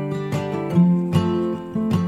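Background music on acoustic guitar, strummed and plucked notes following one another at a steady level.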